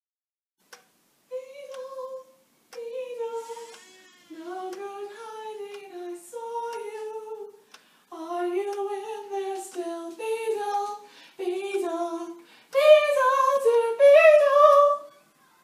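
A woman singing unaccompanied in short melodic phrases with brief pauses between them, loudest in the last few seconds.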